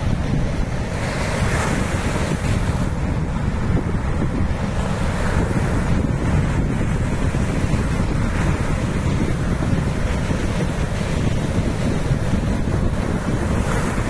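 Ocean surf breaking and washing in, its hiss swelling every few seconds, under heavy wind rumbling on the microphone.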